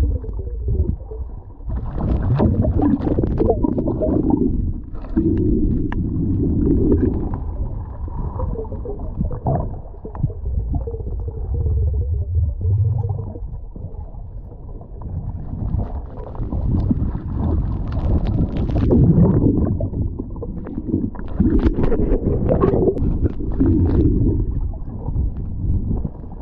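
Underwater noise heard through a camera's waterproof housing: a muffled low rumble with gurgling surges every few seconds as the diver moves along the rock.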